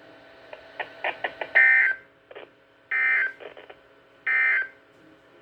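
Three short bursts of EAS digital data tones over a NOAA Weather Radio broadcast, about a second and a half apart and each under half a second long: the end-of-message code that closes a severe thunderstorm warning. A few faint clicks come before the bursts.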